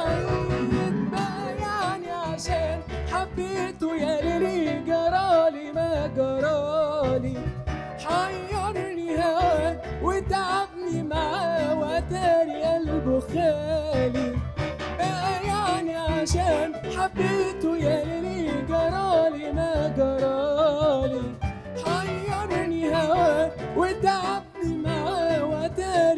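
Live Egyptian Arabic song: a male singer's wavering, ornamented melody over ensemble accompaniment that includes a qanun.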